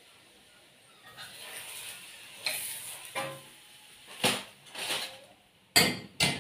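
Kitchen handling sounds as cooked chapatis are moved from a frying pan into a foil-lined plastic bowl: a light rustle, then a series of knocks and clatters, loudest in a sharp double knock near the end.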